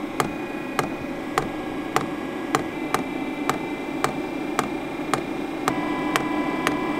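Diesel heater's fuel dosing pump ticking at an even pace, a little under two clicks a second, as it primes the fuel line. A steady whir runs underneath.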